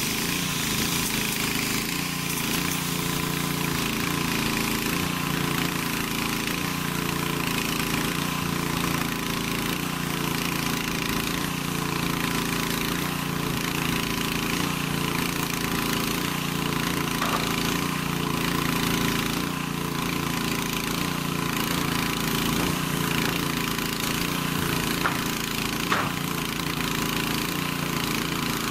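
An airless paint sprayer rig running steadily while its gun sprays roof coating: a motor drone with the hiss of the spray.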